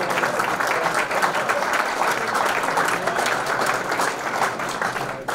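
Audience applause: many people clapping densely and steadily for a graduate, stopping abruptly near the end.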